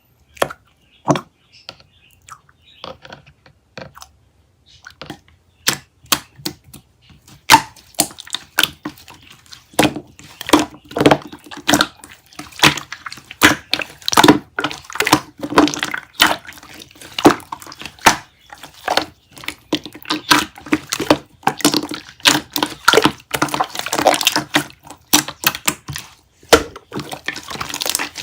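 Irregular sharp crackles and clicks from objects being handled close up. They are sparse for the first few seconds, then come thick and fast.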